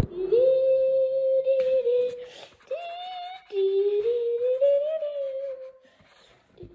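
A child humming a tune without words in three long held notes: the second is higher, and the third rises and then slides back down. The humming stops about six seconds in.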